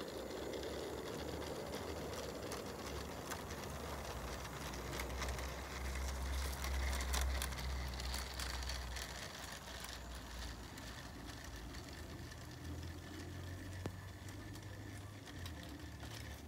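Garden railway train, a small locomotive hauling a rake of skip wagons, running along the track with a steady stream of clicking and rattling from the wheels and wagons.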